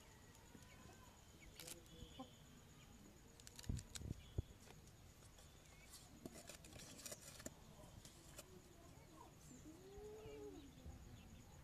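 Quiet rural background with faint animal calls from farm livestock, and scattered soft clicks and knocks, the loudest a couple of sharp knocks about four seconds in.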